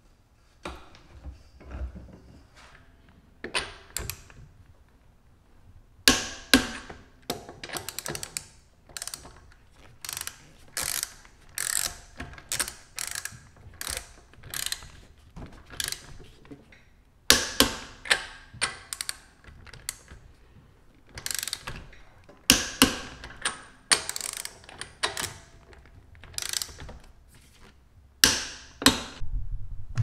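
Ratchet wrench clicking in repeated runs of quick clicks as a car wheel's lug nuts are run down and tightened, with a few louder clacks.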